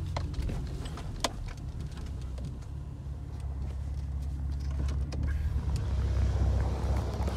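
Chevrolet Camaro V6 engine and exhaust running, a steady low rumble that grows louder near the end, with a few sharp clicks. The exhaust is one the driver takes for a quiet aftermarket system rather than stock.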